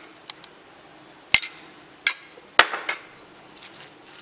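A metal spoon clinking sharply against a stainless steel bowl about seven times as salt is added and mixed into chopped onion, tomato and ground coconut. The two loudest clinks come a little over a second in and at about two and a half seconds.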